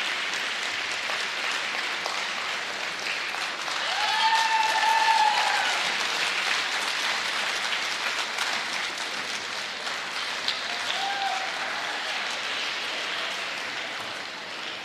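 Arena crowd applauding steadily after a figure skating performance, with a voice in the stands calling out about four seconds in and again briefly near eleven seconds. The applause swells around the first call and then slowly dies away toward the end.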